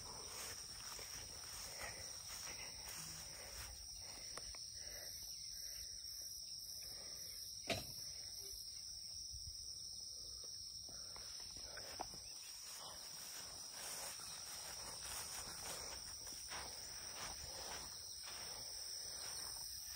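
Crickets chirring steadily in grassland, a continuous high-pitched hum on two pitches. A short click sounds about eight seconds in, and a fainter one about twelve seconds in.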